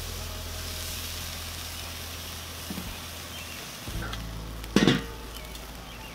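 Chuck roast sizzling as it sears over hot charcoal on the grate of a Weber kettle grill, a steady hiss, with one short sharp clack just before the end.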